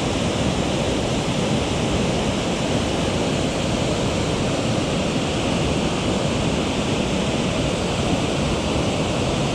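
Mountain stream water rushing, a steady, even noise throughout.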